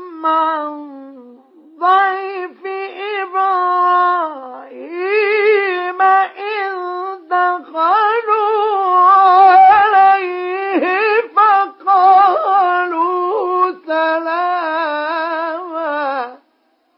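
A male Quran reciter's voice chanting in the ornate mujawwad style. He draws out long, wavering notes in a high register with short breaths between phrases, and stops shortly before the end.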